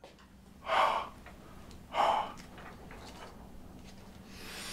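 A person gasping twice, two short sharp breaths about a second apart, then a longer breathy exhale starting near the end, over a faint steady hum.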